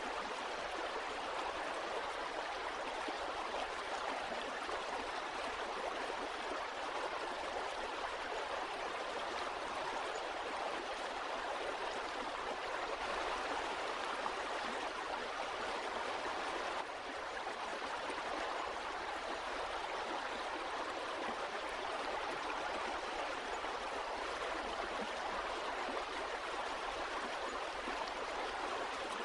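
Flowing water, a steady even rush like a stream, with a brief slight dip in level about 17 seconds in.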